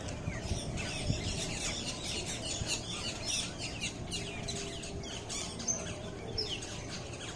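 Many small birds chirping and tweeting in a dense, overlapping chorus of quick high calls, over a steady low background hum.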